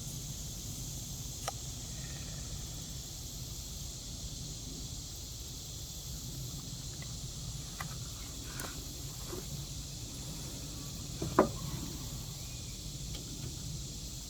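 Steady chirring of crickets and other insects, with a few faint clicks of tools or parts being handled and one sharper clink about eleven seconds in.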